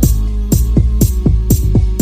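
Electronic dance music without vocals: a kick drum with a falling pitch on about every half second, hi-hats between and a sustained bass line.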